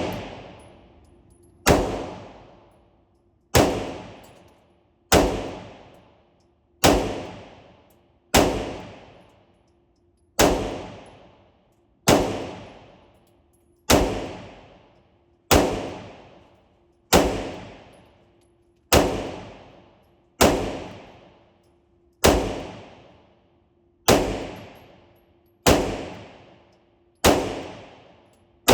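Slow, steady single pistol shots, about one every 1.7 seconds, some sixteen in all. Each sharp crack is followed by about a second of fading echo.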